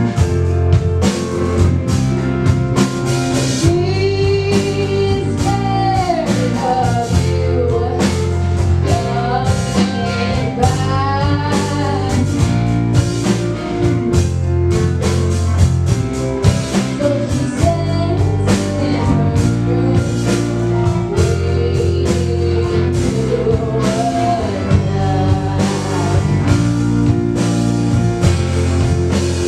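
Live rock band playing an original song: electric guitar, bass and keyboard over a drum kit, with steady chords and a bending, wavering lead melody about four to twelve seconds in.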